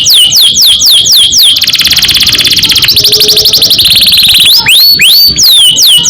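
Domestic canary singing loudly: repeated downward-sweeping whistled notes, about three a second, then a long rapid rolling trill that runs for about three seconds and drops a little in pitch halfway, then the sweeping notes again near the end.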